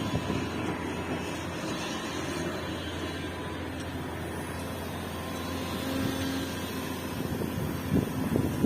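Hidromek HMK 370 LC excavator's diesel engine running steadily, with a faint steady whine over it. A brief burst of louder knocks comes near the end.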